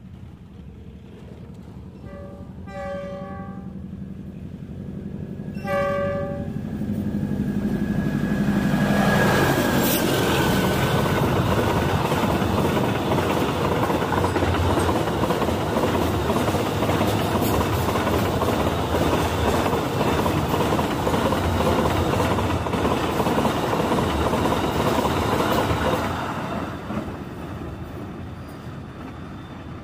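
A diesel locomotive sounds its horn twice as a container freight train approaches at speed. The locomotive passes about ten seconds in, and the container flat wagons run past loudly on the rails for about fifteen seconds. The noise then falls away as the train recedes.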